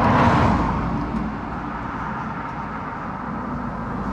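A car passing on the road: its noise swells in the first moment and fades away over the next second or so. A steady low rumble of traffic lies under it.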